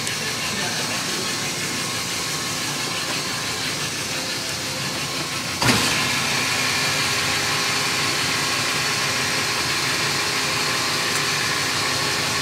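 Taylor soft-serve ice cream machine running with a steady motor hum while soft serve is dispensed into a cone. About halfway through there is a sharp click, and the hum is louder after it.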